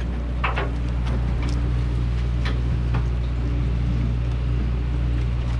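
Steady low hum of the fishing boat's onboard machinery, with a few faint clicks over it.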